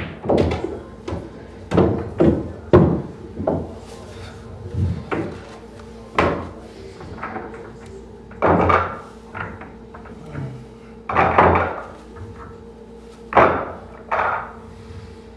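Pool balls clacking and knocking: a shot plays out, then balls are handled and set into a triangle rack, giving about a dozen separate sharp clacks and thuds at uneven intervals.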